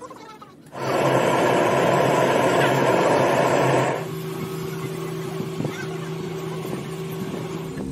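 Gas torch flame hissing steadily as it melts lead on the connector straps inside a lead-acid battery cell. The loud hiss sets in sharply about a second in, then drops to a quieter hiss with a steady hum about four seconds in.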